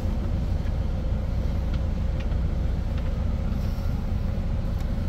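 Steady low rumble of an idling semi truck, heard from inside the cab, with a faint steady hum over it.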